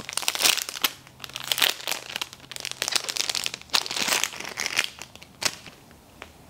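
Packaging crinkling and crackling as a small wrapped item is opened by hand, in quick irregular crackles with a few sharper snaps. The handling stops about five and a half seconds in.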